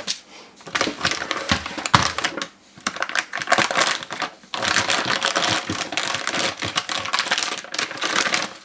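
Plastic packaging bags on 3D printer filament spools being torn open and handled: rapid crackling and rustling of the plastic, with brief lulls about two and a half and four and a half seconds in.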